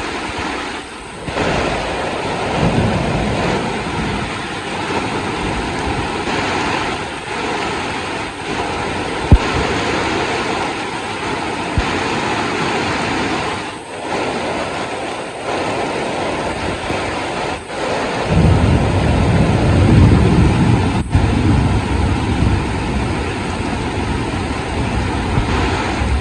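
Heavy rain falling in a steady hiss. About two-thirds of the way through a deep low rumble swells in underneath and carries on to the end, with a single sharp click a third of the way in.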